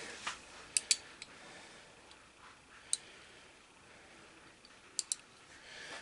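Sharp metallic clicks from 3/8-inch drive ratchets being handled: a close pair about a second in, single clicks, and another close pair near the end, spaced irregularly rather than as continuous ratcheting.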